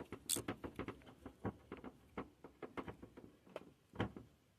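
MC4 solar connector's plastic back nut being screwed onto its housing: a run of small, irregular plastic clicks and ticks, with a sharper click near the end.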